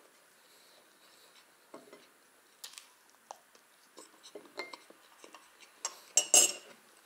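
Tableware being handled while eating: scattered light taps and clicks of china and cutlery, with a short cluster of louder ringing clinks about six seconds in.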